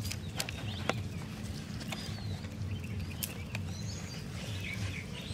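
Rural outdoor ambience: faint chirping bird calls over a steady low hum, with a few sharp clicks.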